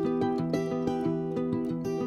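Background music: a plucked guitar-like instrument playing a steady chord pattern.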